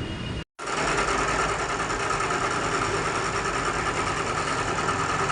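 Toyota Vios engine running at a steady idle, with a constant whine over it. The car is being diagnosed for a rough idle. The sound starts after a brief dropout about half a second in.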